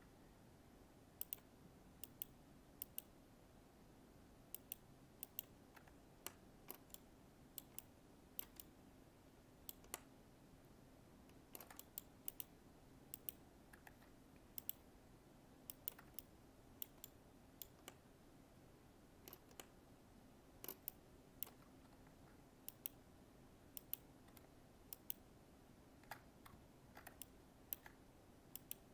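Computer mouse clicking: short sharp clicks at irregular intervals, often in quick pairs, over a faint steady hum.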